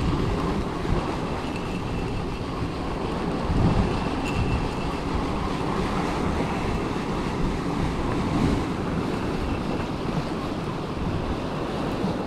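Sea waves breaking and washing over rocks, with wind rumbling on the microphone; the surf swells a little louder now and then.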